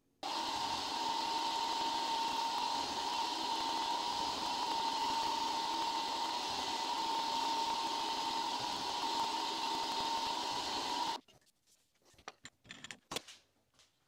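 Drilling machine's spindle running steadily with a high-pitched hum, drilling the dot holes in a steel cube. It cuts off suddenly about eleven seconds in, followed by a few light clicks and knocks.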